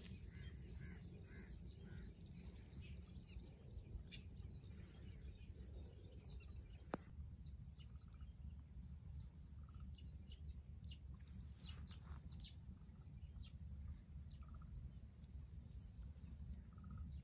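Faint outdoor ambience: small birds chirping, with a quick run of high chirps about five to six seconds in and again near the end, over a low steady rumble. A single sharp click about seven seconds in.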